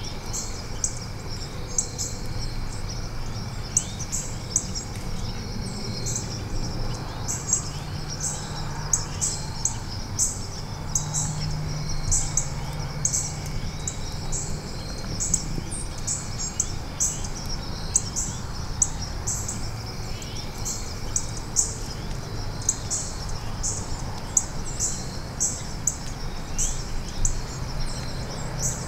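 Outdoor dusk ambience of insects and birds: a short high chirp repeats about every second over a steady high hum and a low rumble.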